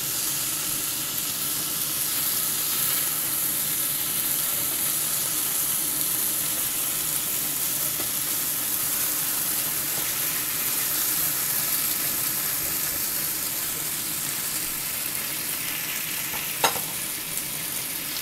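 Marinated chicken legs sizzling steadily in a hot, oiled grill pan while they are turned over with tongs. One sharp click comes about a second and a half before the end.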